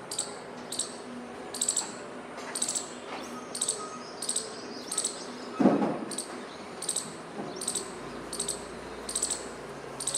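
Squirrel giving sharp, high chirping calls over and over, each a quick cluster of pulses, about every 0.7 s. A louder thump comes about halfway through.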